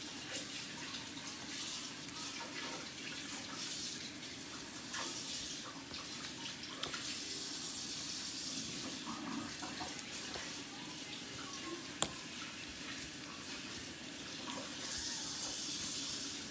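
Kitchen tap running steadily, with one sharp click about twelve seconds in.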